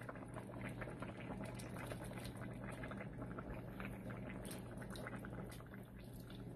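Chicken biryani sauce simmering in a pot, a fine continuous bubbling and popping, over a steady low hum.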